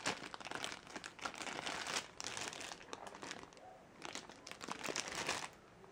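Plastic packaging crinkling and rustling as boxed accessories are handled and unwrapped, in a run of dense crackles that eases off briefly in the middle and stops shortly before the end.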